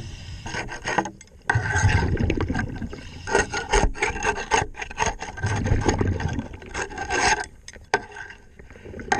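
Hull cleaning underwater: a brush or pad scrubbing and rubbing along a boat hull in irregular strokes, each lasting about half a second to a second and a half.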